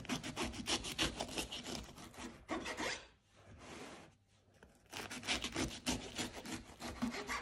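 Knife sawing back and forth through the crisp baked crust of a casatiello bread ring, a rapid rasping scrape on each stroke. Two bouts of sawing with a pause of about two seconds between them.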